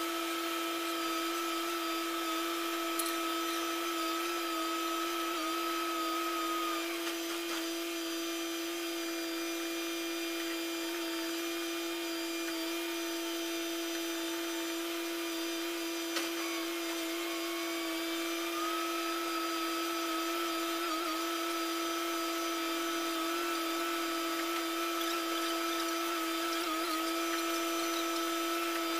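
Steady multi-tone whine of a small high-speed motor, its pitch sagging for several seconds partway through and then climbing back. Two faint clicks, a few seconds in and about halfway.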